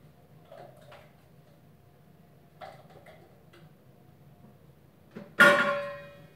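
A few faint taps, then about five and a half seconds in one loud, sharp knock of a hard object that rings briefly with several clear tones before fading, echoing off the tiled bathroom walls.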